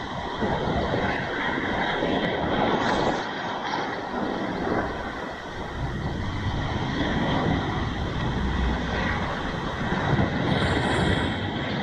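Sea waves breaking and washing over a rocky shore: a continuous rush of surf that swells and eases, dipping briefly about halfway through.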